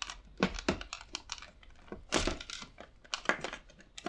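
Irregular clicks and knocks of banana-plug test leads being pulled out and plugged into multimeter sockets, with hands working a multimeter's range switch. The loudest knocks come about two and three seconds in.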